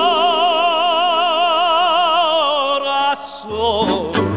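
A man sings one long held note with a strong, even vibrato. He breaks off about three seconds in, and the accompanying music carries on with a low bass line.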